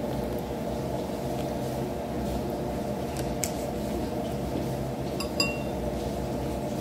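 A few light clinks and taps of plastic chopsticks and tableware against a bowl, heard over a steady low hum.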